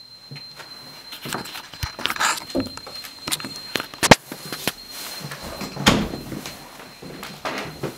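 Handling of a panelled interior door with a brass knob: a series of knocks and clicks as it is pushed open, the loudest a sharp click about four seconds in. A faint steady high-pitched tone runs underneath.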